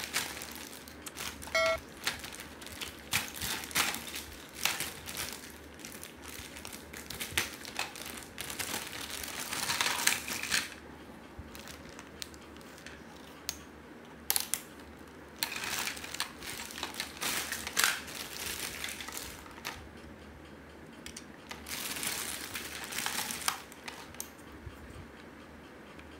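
Clear plastic packaging bag crinkling in irregular bursts as a toy AUG gun is unwrapped and handled by hand.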